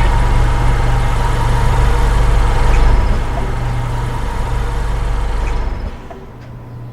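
A vehicle engine running steadily with a deep, loud rumble. The rumble drops away suddenly about six seconds in.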